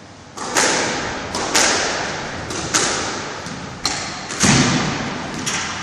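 Squash doubles rally: a string of sharp cracks of racket strikes and the ball hitting the walls, many in close pairs and coming about once a second, each ringing on briefly in the court's echo.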